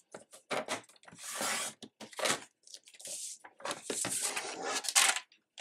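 Sliding-blade paper trimmer cutting cardstock: several scratchy swishes of the blade carriage along the rail, with light clicks and taps as the paper and trimmer are handled.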